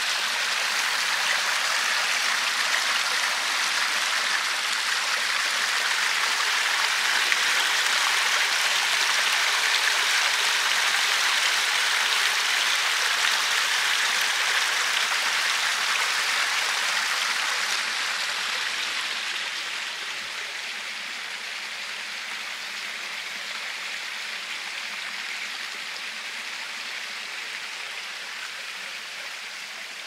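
Small stream flowing: a steady rush of running water that drops somewhat in level about two-thirds of the way through.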